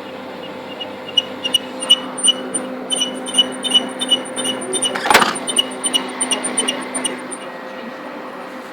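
Kyocera FS-3140 laser printer running with a steady hum and a rapid series of short high-pitched squeaks, several a second, starting about a second in and stopping near the end, with one louder knock midway. The squeaking is the fault the printer is being shown for.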